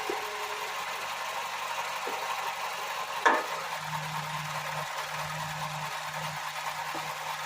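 Nissan X-Trail T31 2.0 idling, with one sharp knock about three seconds in as the CVT is put into gear, after which a steady low hum sets in. The short knock on engaging D or R comes from the exhaust pipe joint and was cured by replacing the sealing rings there.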